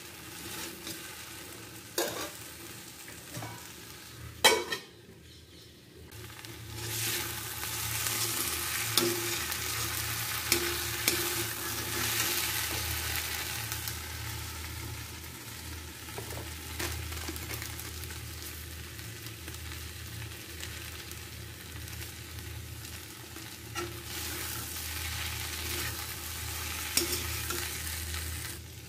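Okra sizzling as it stir-fries in an iron kadai, with a steel spatula scraping and clinking against the pan now and then. The sizzle grows louder about seven seconds in.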